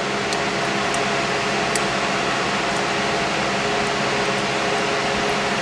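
Steady hum and hiss of a running fan-type machine, with a few faint small clicks in the first two seconds.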